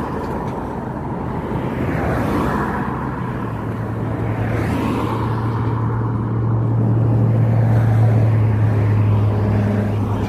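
Cars passing on a busy road, their noise swelling and fading, over a steady low hum that grows louder and then stops right at the end.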